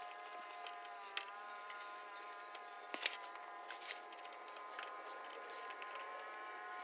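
Light metallic clicks and scrapes of a hand screwdriver working the fasteners of a plastic underbody panel, scattered and irregular, with a small cluster about three seconds in. Under them runs a faint steady hum of several held tones.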